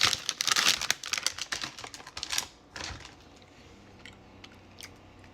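Plastic candy wrapper of a pack of Sour Punch filled straws crinkling as it is handled and reached into, for about two and a half seconds, then a few faint ticks.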